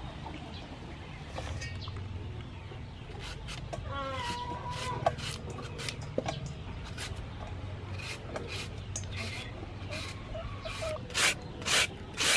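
Peeled mango being shredded on a hand-held shredder into a steel bowl: short scraping strokes, about two a second, loudest near the end. A hen clucks once about four seconds in.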